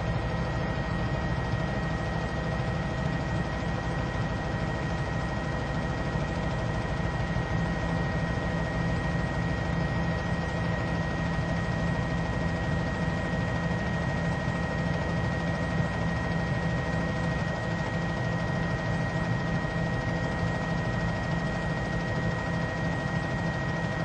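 Helicopter running steadily, heard from aboard: a low, rapid rotor beat with engine noise and a steady high whine.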